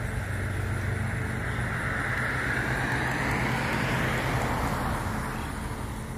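A road vehicle passing by, its tyre and road noise swelling to a peak about halfway through and then fading, over a low steady hum.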